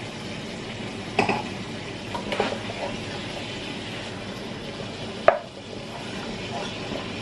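Wooden spoon stirring minced garlic and melting butter in a non-stick pot, over a steady low sizzle, with a few knocks of the spoon against the pan, the sharpest about five seconds in.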